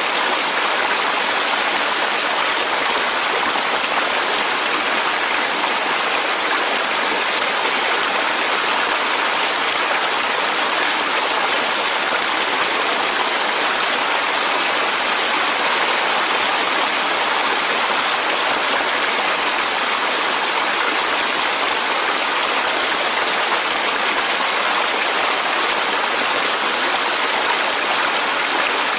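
Clear mountain valley stream flowing over rocks, a steady, even rush of water with no change.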